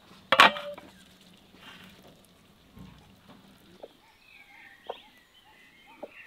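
A single sharp knock about half a second in, the loudest sound, with a brief ring after it; then hens clucking softly and small birds chirping.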